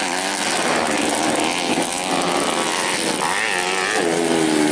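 Dirt-track racing motorcycle engines revving up and down as the bikes are ridden through the course, the engine pitch rising and falling, with a sharp rev-up about three seconds in.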